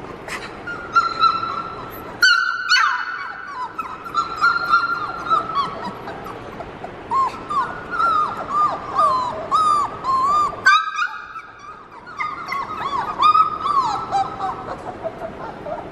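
A litter of three-week-old Labrador puppies whining, a near-continuous chorus of short high-pitched cries, many falling at the end.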